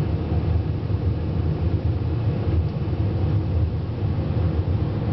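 Jet airliner cabin noise in cruise through cloud: a steady low rumble of the turbofan engines and airflow heard inside the cabin.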